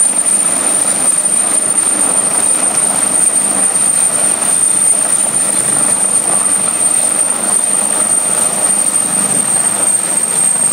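Air-ambulance turbine helicopter running on the helipad after landing: a steady, loud rotor and engine noise with a constant high-pitched whine.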